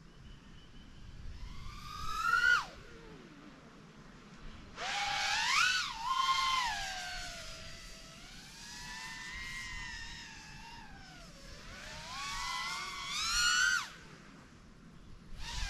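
3-inch FPV quadcopter's BrotherHobby 1504.5 3950kv brushless motors on tri-blade props whining, the pitch sweeping up and down with throttle as the quad flies past. The whine swells three times, about two seconds in, from about five to seven seconds, and from about twelve to fourteen seconds, each time rising to a high peak and cutting off sharply, with a quieter, lower whine in between.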